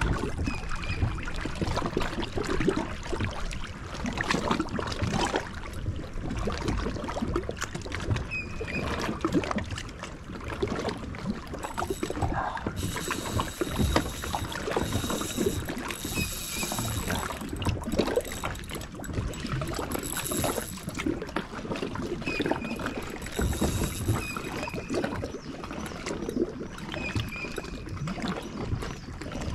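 Pedal kayak moving through water, the water splashing and lapping against the hull, with irregular knocks and a few short high chirps.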